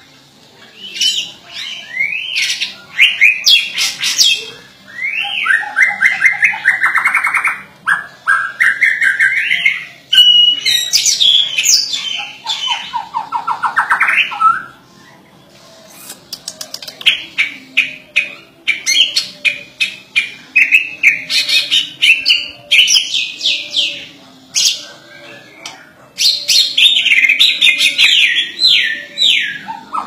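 A caged white-rumped shama (murai batu) singing loud, varied phrases: rising and falling whistles, rapid trills and harsher chattering notes. The song comes in bursts with short pauses about halfway through and again near the end.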